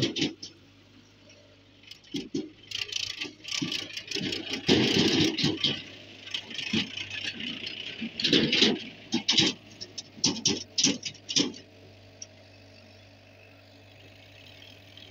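Mahindra Arjun diesel tractor engines running, a steady low hum under loud, irregular rattling and clattering bursts that ease off for a few seconds near the end.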